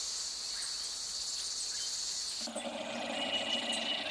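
Steady, high-pitched chorus of insects in dry bush. About two and a half seconds in it switches abruptly to a different, fuller insect chorus with a lower layer beneath it.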